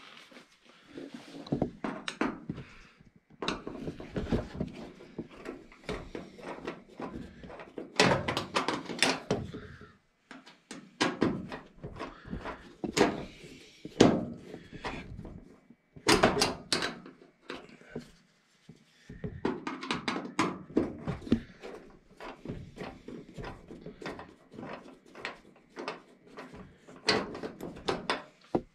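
Screwdriver and hands working on a front-load washing machine's sheet-metal cabinet and top cover: irregular clicks, knocks, scrapes and clunks with short pauses between them.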